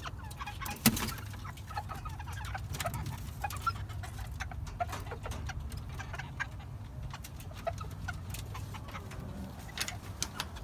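Chickens clucking in short, scattered calls, mixed with many small clicks and taps. There is one sharp knock about a second in.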